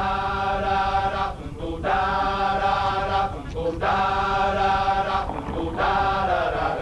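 Music: a group of voices chanting long held chords in four phrases, with short breaks between them.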